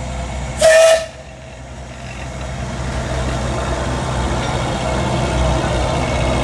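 One short blast of the Alishan Forest Railway Shay No. 25 steam locomotive's whistle, about half a second in. It is followed by a steady low rumble that grows gradually louder over the next few seconds.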